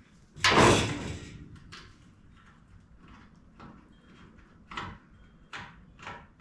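A loud clattering knock about half a second in that dies away over about a second, followed by several lighter knocks and clicks of parts or tools being handled.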